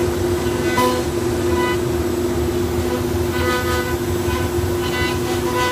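FMT CNC router V-carving a 1/2-inch Corian sheet with a 60-degree V-bit: a steady spindle and dust-collection drone with a low rumble. Short whining tones at one pitch come and go several times as the machine works.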